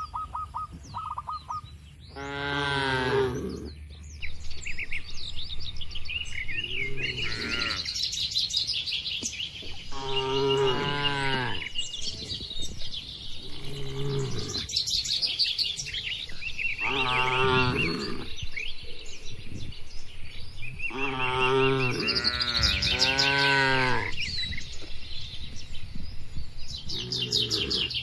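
A herd of cattle mooing, about eight calls of a second or so each, spaced a few seconds apart, several of them overlapping near the middle. Birds chirp between and over the calls.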